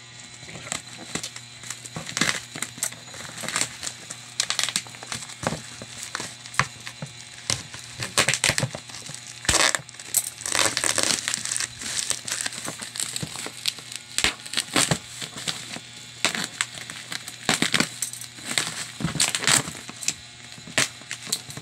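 Plastic parcel wrapping, packing tape and bubble wrap being torn and crinkled by hand: irregular crackling rips and rustles.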